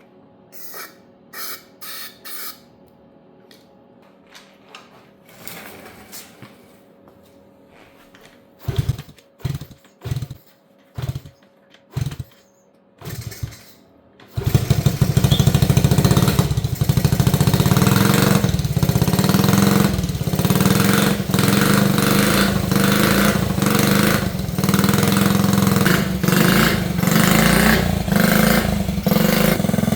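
A few short hisses of aerosol carb cleaner, then a 1970 Honda Z50's 49 cc single-cylinder four-stroke engine is kicked over with five or six low thumps before it catches about fourteen seconds in and keeps running steadily. It starts only with carb cleaner in the intake, a sign of a hard-starting engine that is short of fuel.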